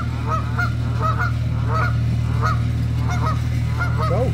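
A boat engine runs steadily as a low drone. Over it, geese give short, repeated honks, about two a second.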